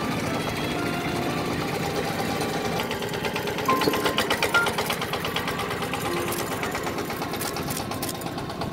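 Two-wheel walking tractor's single-cylinder diesel engine running with a rapid, even beat as it pulls a loaded trailer, loudest about four seconds in as it passes close.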